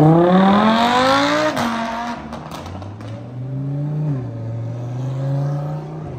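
Lamborghini Huracán V10 revving hard as the car accelerates away, the pitch climbing steeply, then dropping at an upshift about one and a half seconds in. A second Huracán, an STO, follows past with its V10 at a steadier, quieter note.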